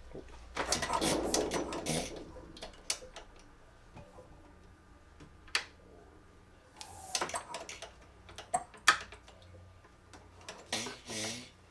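Hands handling a 1/3-scale Galloway hit-and-miss model engine while readying it to start: irregular metal clicks, short rattles and rubbing as the flywheel is worked and fittings are adjusted. The longest stretch of clatter comes about a second in.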